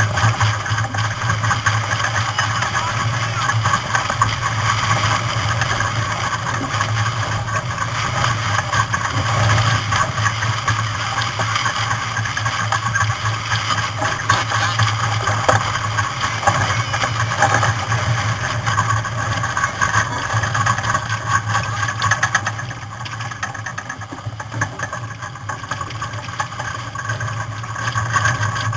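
Steady rush of wind and water on board a sailboat under way, with a constant low hum; it eases for a few seconds about three-quarters of the way through.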